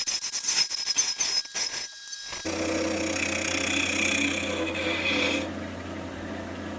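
Wood lathe turning a small scrap-wood blank while a turning tool scrapes and chatters against it, irregularly at first. A steadier cut with a hiss follows, and the cut stops about five seconds in while the lathe motor keeps humming.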